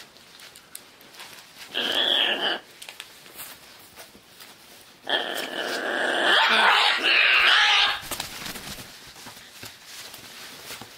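Scarlet macaw calling twice during play: a short rough call about two seconds in, then a longer one of about three seconds from about five seconds in.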